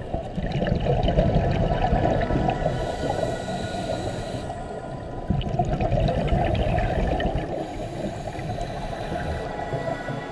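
Scuba diver's breathing bubbles, muffled as heard through an underwater camera housing: a gurgling rush of bubbles that swells twice, about five seconds apart, with quieter stretches between.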